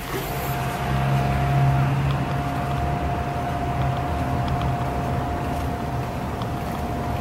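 Steady outdoor city noise: distant traffic rumbling with a low hum, heard through the open balcony door, and a faint steady whine over it.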